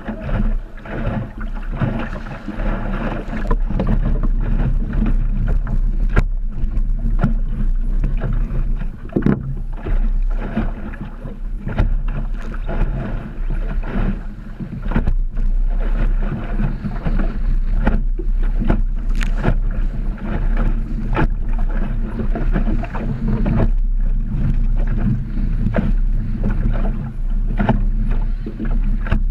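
Wind buffeting the microphone over water rushing and splashing against the hull of a small sailing dinghy moving fast through chop, with frequent short slaps and spray hits.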